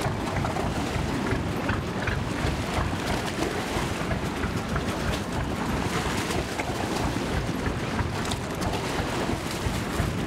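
Steady low rumble of a canal water-taxi boat's engine running at the pier, with wind buffeting the microphone.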